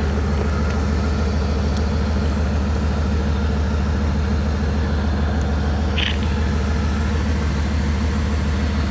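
Truck engine idling steadily, with a brief faint tick about six seconds in.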